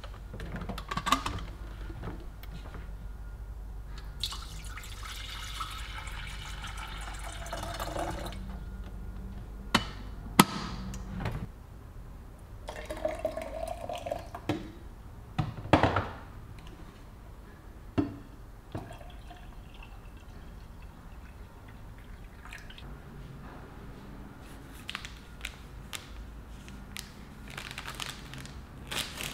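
Water poured in a stream, a longer pour and later a short pour into a metal flask, among sharp clicks and knocks as a glass kettle, the flask and a drinking glass are handled and set down on a countertop.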